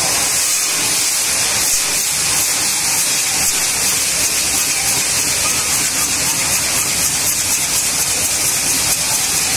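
Traditional gunpowder fireworks wheel (chakra) burning, a loud steady hiss of its fire jet with a fine crackle.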